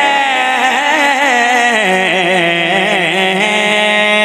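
A man's solo voice singing an Urdu naat, drawing out the end of a line in one long melismatic phrase with wavering ornaments, and settling into a steady held note about three seconds in.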